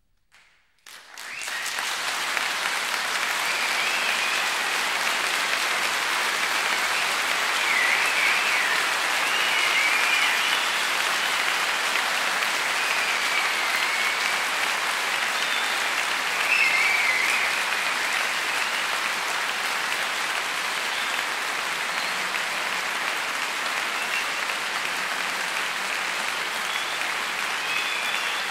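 Concert hall audience breaking into sustained applause about a second in, after the piano piece has ended. A few high, wavering whistles sound over the clapping.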